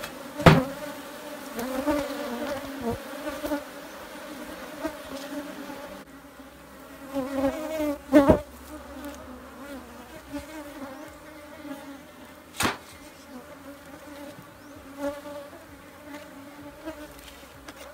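Africanized honey bees buzzing in a steady, wavering drone around an opened hive, the colony stirred up by the work. A few sharp knocks sound as the wooden hive boxes are handled, the loudest about half a second and eight seconds in.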